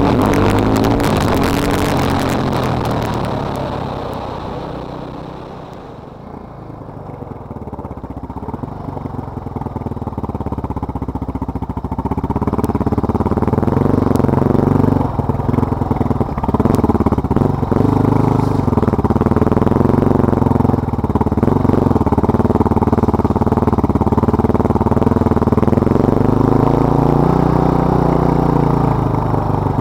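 Yamaha Raptor 660 quad's single-cylinder four-stroke engine being ridden gently during break-in, heard through a helmet-camera microphone. It revs at first, then the throttle eases off and the engine falls quieter about six seconds in. It builds back up to a steady run, with a few sharp knocks around the middle.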